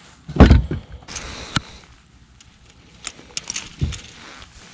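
Handling noise of a landing net and a hooked fish on a bass boat's carpeted deck: a heavy thump about half a second in, a brief rustle of the net, then small sharp metal clicks from pliers and the crankbait's hooks, and another thump near the end.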